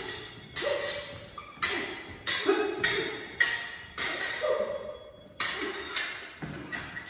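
Steel rapier blades clashing in a sparring bout: about a dozen sharp, ringing blade-on-blade strikes, roughly two a second, each ringing briefly before the next.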